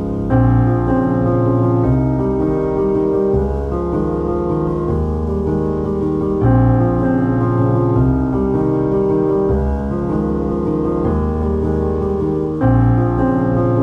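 Background piano music: sustained chords, with a new chord about every second and a half.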